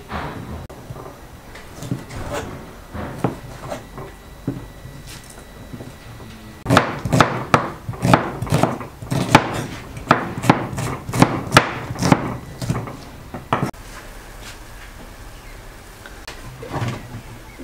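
Kitchen knife chopping vegetables, onion among them, on a wooden cutting board. Scattered knocks at first, then a run of quick chops, about two or three a second, that stops about three-quarters of the way through.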